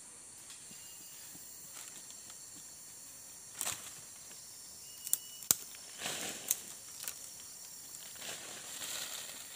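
Hands scraping and scooping loose soil and dry leaf litter in short strokes, with a few sharp clicks, over a steady high insect drone.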